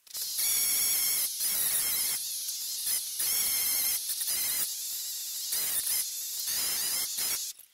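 Chainsaw running at high revs while cutting, its note dipping briefly about six times before it stops near the end.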